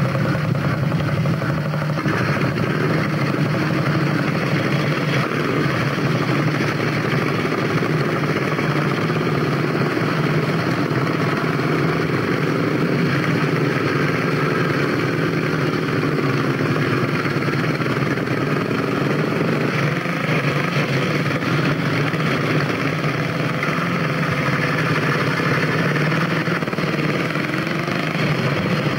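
Several vintage motorcycle engines idling and running together: a steady, unbroken engine noise with a low hum underneath.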